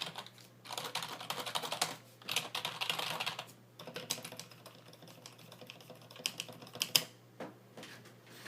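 IBM Model KB8923 rubber dome membrane keyboard with PBT keycaps being typed on. Rapid runs of keystrokes fill the first few seconds, then slower scattered key presses follow, with one louder key strike about seven seconds in.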